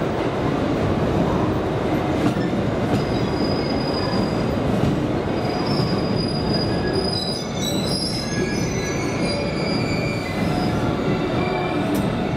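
JR 285 series 'Sunrise' sleeper electric train rolling slowly into the platform with a steady rumble. High, thin squeals from its wheels and brakes come and go from about three seconds in, thickest past the middle.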